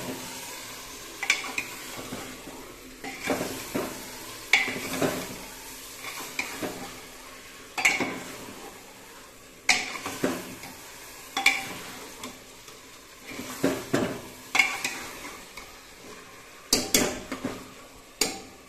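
A ladle stirring chicken pieces into thick tomato gravy in a pressure cooker pot, scraping and knocking against the pot about every one and a half seconds, with a quicker run of knocks near the end, over a steady sizzle of frying.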